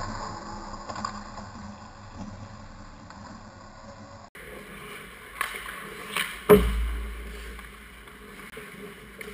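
Ice hockey play heard from a camera mounted on the goal: skates scraping on the ice and sticks clicking. About six and a half seconds in there is a hard knock with a low thud, the loudest sound.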